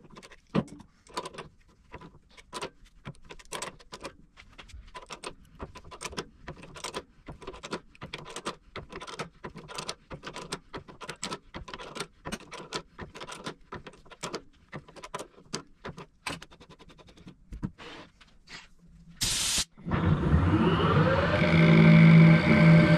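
Fast irregular metallic clicks and light knocks from a threading die being worked by hand in a tailstock die holder on a steel pin, sped up. About twenty seconds in, the Harrison lathe starts, runs up and settles into a steady hum.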